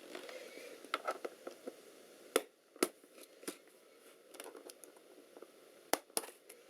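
Sharp plastic clicks and taps of a laptop keyboard being pried up out of its case, scattered, with the loudest two about two and a half seconds in and two more near the end.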